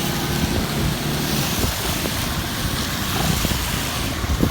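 Steady vehicle and road noise while riding through traffic, a low engine rumble under an even hiss.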